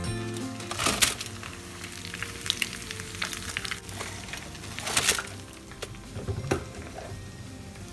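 Kitchen work: utensils and containers scraping and clattering over a steady hiss, with the loudest clatters about a second in and around five seconds in.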